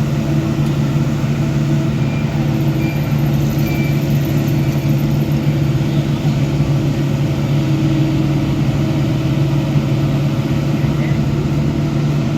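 Diesel engine of heavy earthmoving machinery running at a steady speed, a constant even hum.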